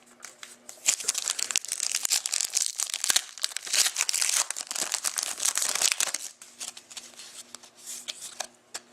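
A trading-card pack's wrapper crinkling and tearing as it is ripped open and pulled apart, dense and crackly for about five seconds; then quieter, scattered clicks as the cards are handled.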